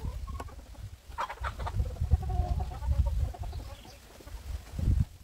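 Farmyard chickens clucking, over a low rumble on the microphone, with a few sharp clicks about a second in.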